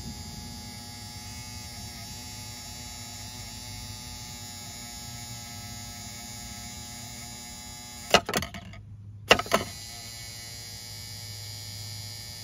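Volvo Penta SX-A power trim/tilt pump motor, a small brushed 12-volt DC motor, running free with a steady electric hum: the motor spins, so it still works. About eight seconds in, a few sharp clicks break the hum and it briefly drops out before running on.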